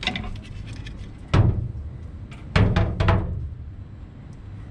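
Stock plastic coolant header tank being pulled free of its mounts and knocking against the engine bay: one heavy thump, then about a second later three quick knocks in a row.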